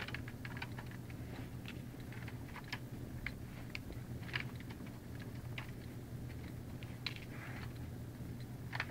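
Wrapped sweets being picked by hand out of a LEGO robot's plastic tray: scattered small clicks and wrapper crinkles, over a steady low hum.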